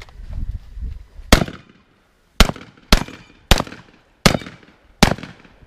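Six shotgun shots: sharp cracks, each with a short echo tail. They start about a second in and follow at uneven gaps of half a second to a second.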